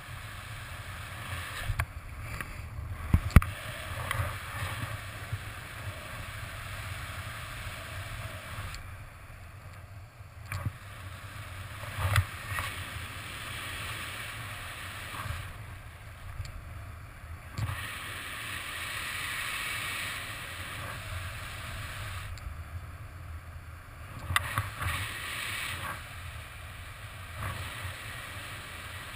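Wind rushing over the camera microphone in paraglider flight: a steady rush with a low buffeting rumble that swells and eases, and a few sharp knocks, the loudest about three seconds in.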